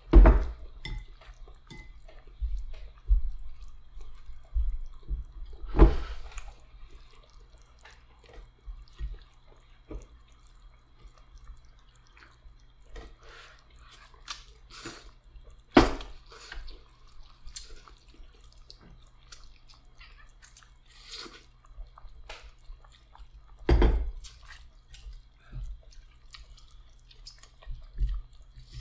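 Close-up eating sounds: noodles slurped and food chewed, with small clicks of chopsticks against ceramic bowls. A few louder knocks stand out, near the start and about 6, 16 and 24 seconds in, over a low steady hum.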